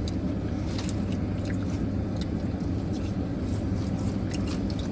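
Chewing on fried chicken, with faint scattered mouth clicks, over a steady low hum.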